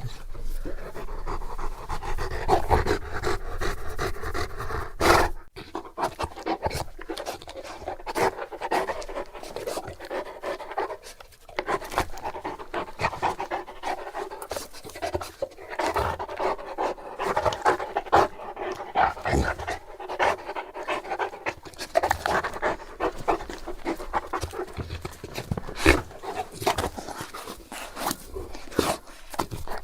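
Bullmastiff panting, deep and loud, in a quick steady rhythm close to the microphone, with a brief sharp noise about five seconds in.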